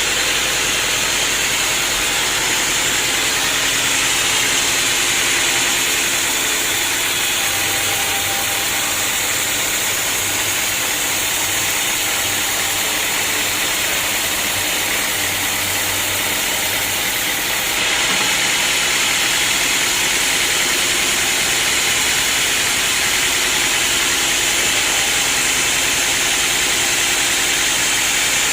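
Sawmill saw and its drive running: a loud, steady mechanical noise with a strong high hiss and a low hum underneath, which shifts slightly about 18 seconds in.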